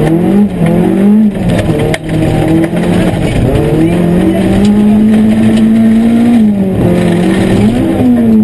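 Opel Astra GSi 16V rally car's 16-valve four-cylinder engine driven hard, revs climbing and dropping with gear changes and lifts of the throttle: a rise in the first second, a sharp break about two seconds in, a long steady pull at high revs, then a lift and a fresh climb near the end.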